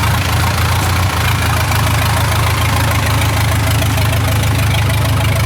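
Engine of rice-harvest machinery running steadily at a constant speed.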